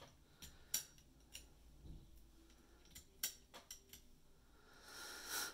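Scattered light clicks and ticks of hands handling small tools and parts at a circular sock machine, with a short rustle near the end.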